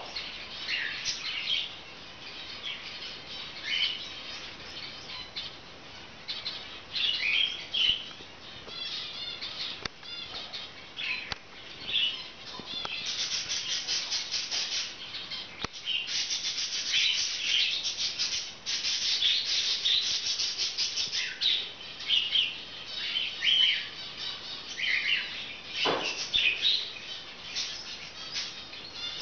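Budgerigars chirping and chattering in short, high calls, with a run of rapid, even strokes through the middle.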